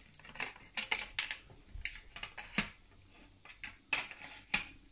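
Scattered light metal clicks and taps from a Seahawk Veleno 110 speargun as its steel shaft is pushed at the trigger mechanism. The shaft will not go in because the mechanism has already latched itself cocked.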